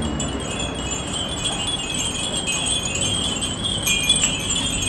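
Many Japanese furin wind chimes ringing together in the breeze, a continuous overlapping high tinkling.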